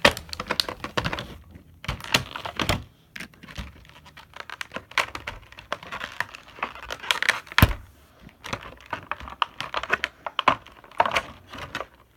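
Toy packaging being handled and opened: irregular crinkling, tearing and clicking of plastic and cardboard, with one sharp knock a little past halfway.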